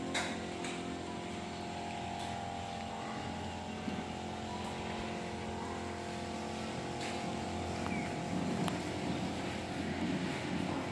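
A steady mechanical drone of a running motor, with a few faint clicks and a rougher low rumble in the last few seconds.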